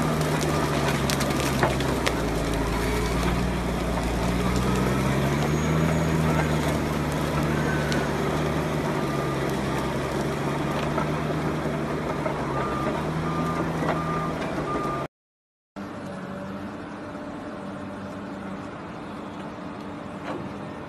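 Caterpillar D9T crawler dozer's diesel engine working under load, its pitch rising and falling a little, with a faint repeating backup-alarm beep in the second half. After a sudden cut about two-thirds through, a Komatsu hydraulic excavator's diesel engine runs more quietly and steadily.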